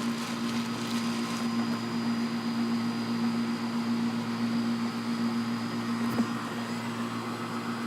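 Steady machine hum from a running appliance or motor, with faint rustling in the first second or so and a single click about six seconds in.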